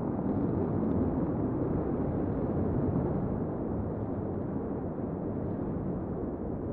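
SpaceX Starhopper's Raptor rocket engine firing: a steady, dense, deep rumble that eases slightly in the second half.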